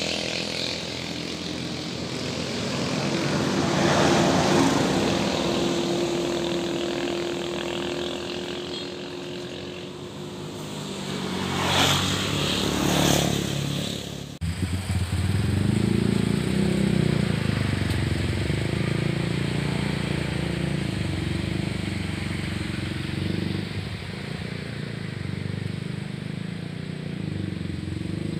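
A motor engine running steadily, swelling about four seconds in and peaking twice around twelve seconds in. It breaks off suddenly about halfway through, and a lower, steady engine hum carries on after the break.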